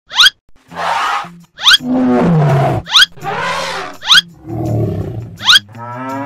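Cartoon animal sound effects: a run of roars and calls, one after another, over children's music. A short, sharp rising chirp recurs about every second and a quarter, with steady low notes underneath.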